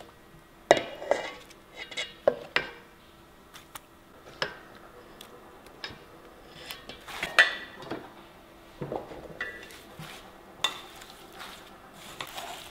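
Utensils knocking and scraping against stainless steel bowls while spice paste is spooned over shrimp: scattered, irregular clinks and taps, the loudest about seven seconds in.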